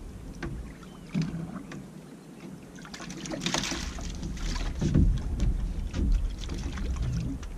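Water lapping against a small open boat's hull, with irregular knocks and clatter as fish and fishing gear are handled on deck, and a louder splashy rush about three and a half seconds in.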